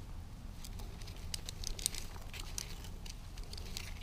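Faint scattered clicks and rustling as climbing gear is handled: nylon webbing and metal rappelling hardware.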